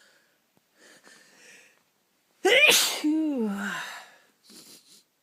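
A person sneezing once, loudly, about two and a half seconds in, after a few faint breaths in. The voiced tail of the sneeze falls in pitch.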